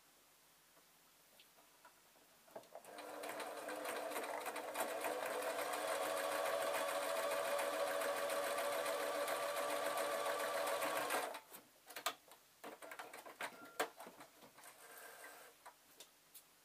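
Electric sewing machine starting about three seconds in and stitching steadily through faux fur for about eight seconds, then stopping abruptly. A few light clicks and knocks follow.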